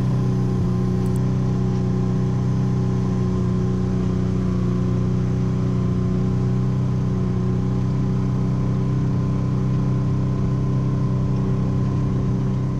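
A motor running at a constant speed: a steady, unchanging droning hum with several pitches stacked on top of each other.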